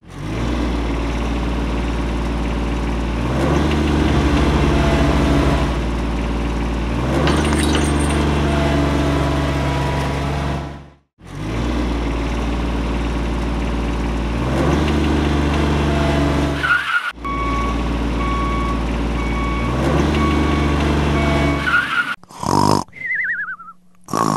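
Engine sound effect dubbed onto a toy tractor: a steady low running drone that shifts in pitch every few seconds and cuts out briefly about eleven seconds in. Near the end it gives way to short cartoon sound effects with a falling whistle-like glide.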